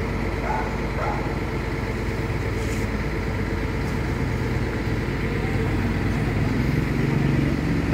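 Steady low hum of an idling engine.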